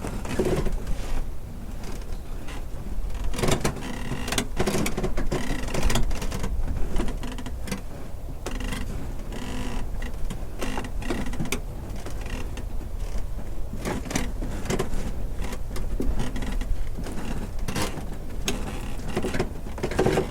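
Wooden dock timbers creaking, groaning and rattling as they shift and strain, in repeated clusters of short creaks over a steady low rumble.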